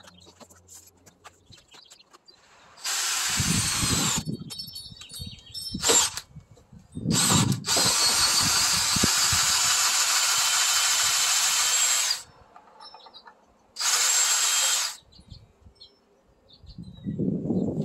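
Cordless power driver running under load, driving long screws into 4x4 timber in three runs: a short one about three seconds in, a long steady one of about five seconds from about seven seconds, and a brief one near fourteen seconds.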